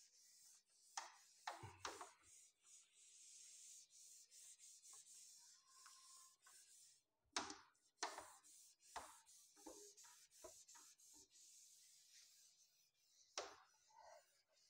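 Faint rubbing of a duster being wiped back and forth across a whiteboard, erasing it, with a few short knocks along the way.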